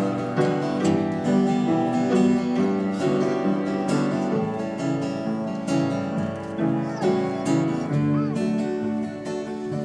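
Music: a strummed acoustic guitar playing a song's introduction.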